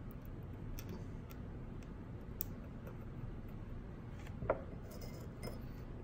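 Small irregular clicks and taps of electronic components being handled and fitted on a circuit board. About five ticks come at uneven intervals, with one sharper click ringing briefly about four and a half seconds in. A steady low hum runs underneath.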